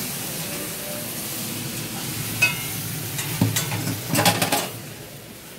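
Food frying in a pan with a steady sizzle. A few sharp clatters of kitchen utensils and dishes come about two and a half seconds in and again around three and a half to four and a half seconds in, and the sizzle grows fainter near the end.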